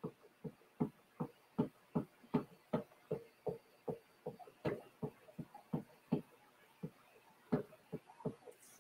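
A small applicator works chalk paste through a silk-screen transfer in short, repeated strokes, about two to three a second.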